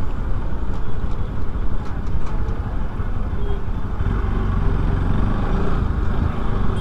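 A motorcycle riding through town traffic: a steady low rumble of its engine and of wind on the microphone, with other road traffic around it.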